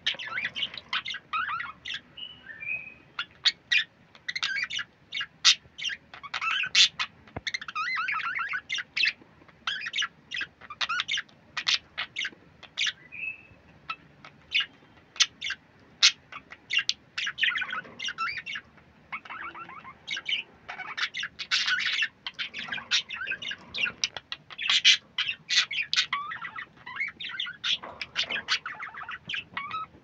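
Budgerigars chirping and chattering: a quick, continuous stream of short, high chirps and squawks.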